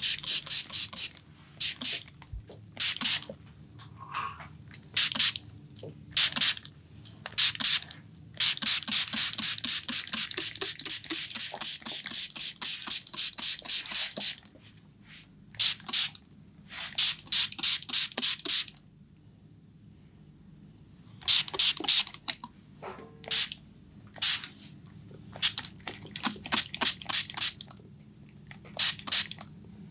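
Close-up barbering sounds on a client's hair and scalp: short, crisp, hissy strokes, some single and some in quick runs, with a long fast run in the middle and a short lull about two-thirds of the way through.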